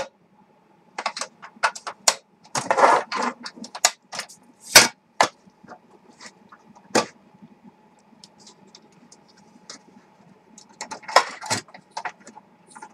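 Iwatani butane gas canister being handled and fitted into a portable cassette gas stove: a string of sharp metallic clicks and clatters, with a short scrape about three seconds in and another cluster of clicks near the end.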